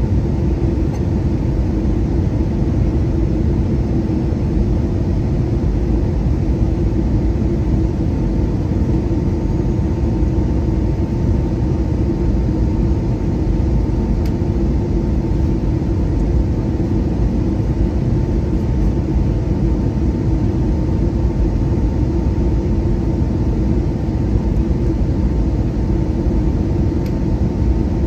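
Steady cabin noise inside an Airbus A320 airliner descending on its landing approach: an even rush of engine and airflow noise, deepest and loudest in the low range, with a thin steady whine above it.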